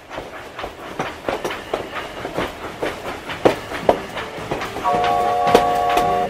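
Train wheels clicking over rail joints at about three clicks a second as the train rolls along. About five seconds in, a steady multi-note train whistle sounds over the clicking.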